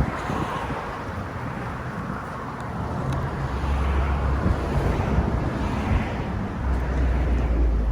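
Wind buffeting the microphone: a steady rushing noise with heavy low rumbles, twice, about midway and near the end.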